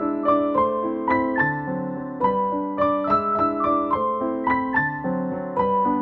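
Background piano music: a gentle waltz played as a melody of single struck notes over lower chords, each note ringing and fading.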